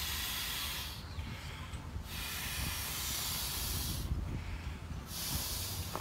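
Breaths blown by mouth into the valve of a Trekology Aluft inflatable camping pillow, filling it with air: long hissing puffs with short gaps between them. One puff ends about a second in, another runs from about two to four seconds, and a third starts about five seconds in.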